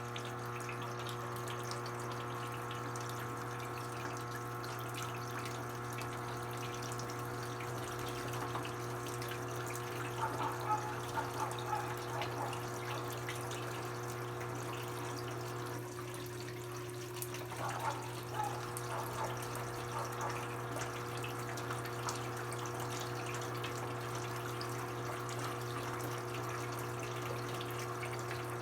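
Brastemp BWK17 17 kg washing machine running with water flowing through it over a steady electric hum. The hum's pitch pattern shifts briefly about halfway through, then settles again.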